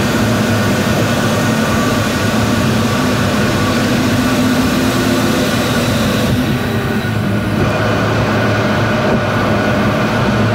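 Steady road noise of a car at expressway speed, heard from inside the cabin: tyre noise with a low engine and drivetrain hum. A brighter hiss while in the tunnel drops away about six seconds in as the car comes out into the open.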